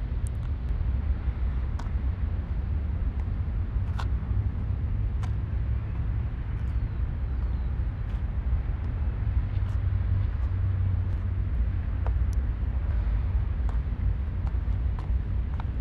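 Steady low rumble of outdoor background noise, with scattered faint clicks over it.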